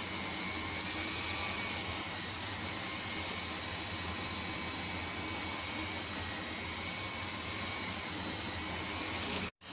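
Electric hand mixer running steadily, its beaters whirring through cake batter. The sound cuts off abruptly just before the end.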